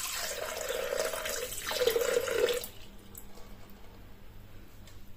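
Water pouring from a plastic measuring jug into the Thermomix TM6's stainless steel mixing bowl, splashing steadily, then stopping abruptly about halfway through.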